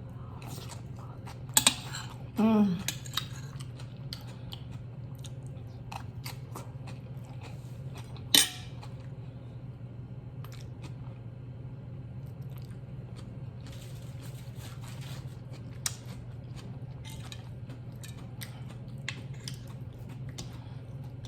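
A person eating oxtail: chewing, with scattered light clicks and taps of bones and cutlery against a plate, one sharper click about eight seconds in and a run of small ones in the second half. A steady low hum runs underneath.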